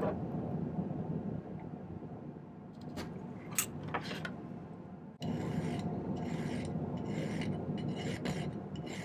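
A few light metal clicks and taps, then from about five seconds in a steady run of hand-file strokes on a fine silver bezel, about two strokes a second.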